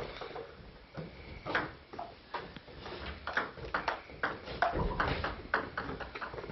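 Table tennis rally: a celluloid-type ball clicking sharply off the bats and table in quick, irregular succession, several hits a second.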